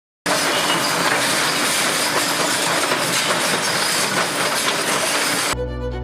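Loud, steady rush of a waterfall, starting abruptly and cutting off about five and a half seconds in, where violin music begins.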